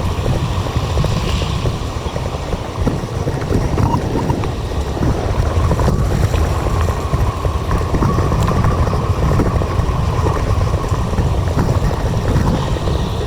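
Wind buffeting the microphone of a camera carried on a moving bicycle: a loud, steady, dense low rumble, with a faint steady whine underneath.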